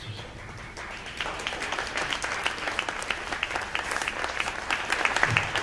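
A live crowd applauding, the clapping swelling about a second in and staying strong throughout.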